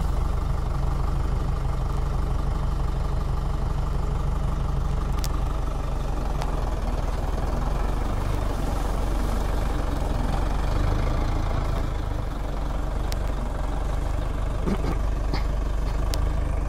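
Diesel engine of a 100-horsepower four-wheel-drive tractor running steadily, with a few faint clicks and a slight dip in level about twelve seconds in.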